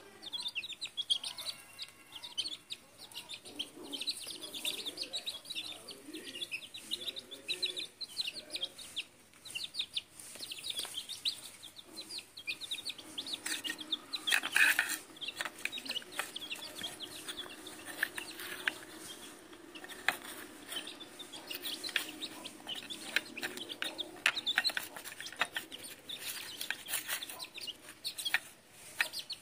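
Domestic hens clucking and chicks peeping, with many quick light clicks that fit beaks pecking at grain on a tiled floor. One louder, sharper sound comes about halfway through.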